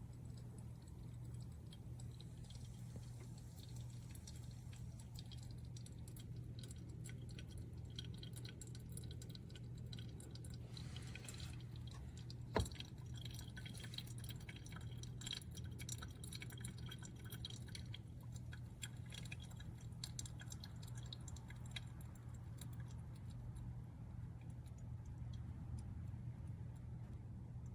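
Faint scattered clicks and ticks over a steady low hum, with one sharp click about twelve and a half seconds in.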